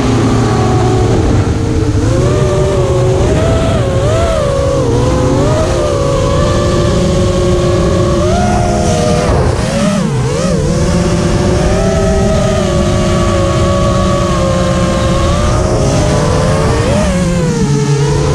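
The brushless motors of a QAV210 FPV racing quadcopter (2306 2400kv on 4S, 5-inch three-blade props) whine steadily, their pitch dipping and rising with the throttle, most sharply around the middle and near the end.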